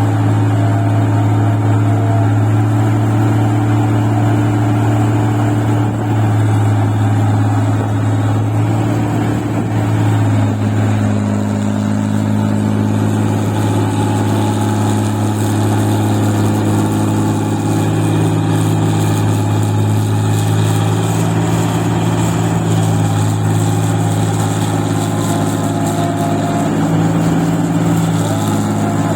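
The engine of a paddy-field machine working in deep mud, running steadily under load. Its pitch shifts slightly about ten seconds in and again near the end as the load changes.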